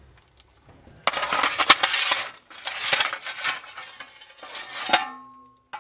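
Lumps of used coke clattering and scraping on a steel fire shovel and into a steam locomotive's firebox in three rattling bursts, as the boiler fire is stoked. Near the end, a single metallic clang rings briefly.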